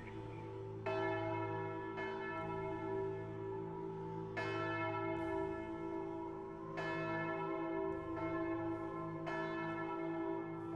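Lausanne Cathedral's church bells ringing, a fresh stroke about every two and a half seconds over the lingering hum of the bells.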